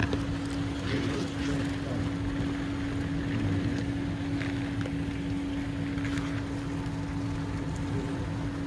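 Magnorail drive running under the model roadway: a steady mechanical hum with one constant tone, with a few faint clicks over it.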